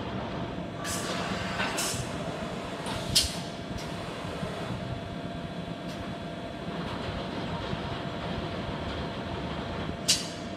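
Hitachi Seiki VS50 vertical machining center running: a steady machine hum with a faint whine, broken by short sharp hisses, three in the first few seconds and one more near the end.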